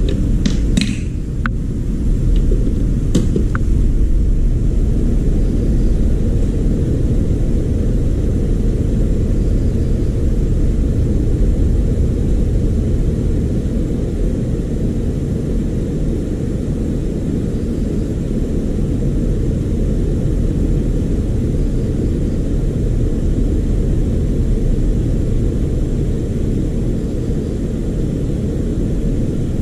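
A loud, steady low rumble throughout, with a few sharp clicks in the first few seconds.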